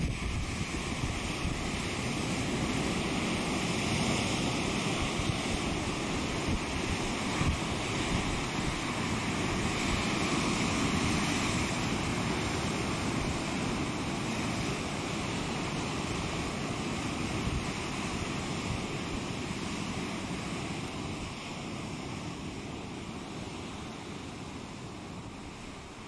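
Steady rushing outdoor ambience, an even noise without distinct calls or knocks, slowly fading out over the last several seconds.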